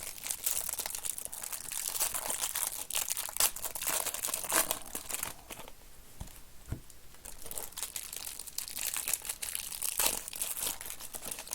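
Plastic and foil trading-card wrappers crinkling and tearing in irregular bursts as card boxes and packs are unwrapped and opened by hand.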